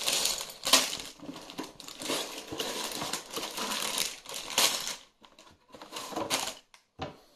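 Sealed plastic bags of Lego pieces crinkling and rustling as they are tipped out of a cardboard box onto a table, with small clicks of the pieces inside. The rustling thins out after about five seconds, leaving a few brief sounds.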